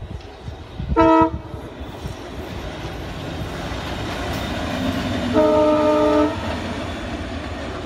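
Indian Railways diesel locomotive passing, its horn sounded twice: a short toot about a second in, then a longer blast of about a second near the middle. Underneath, engine and wheel rumble grows steadily louder as it approaches.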